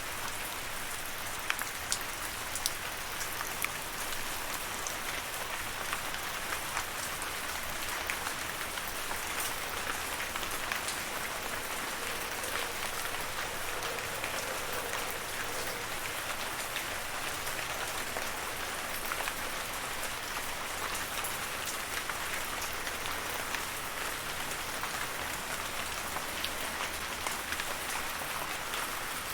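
Steady rain falling: an even hiss with many separate raindrops ticking throughout.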